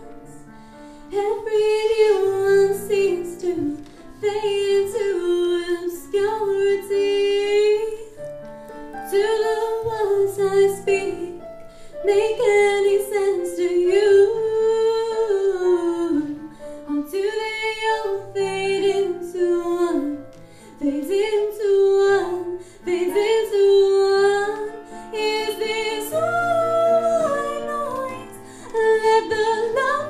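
A woman singing a melody into a microphone in phrases of a few seconds, with long held notes and short breaks between them, accompanied by an electric keyboard playing sustained chords.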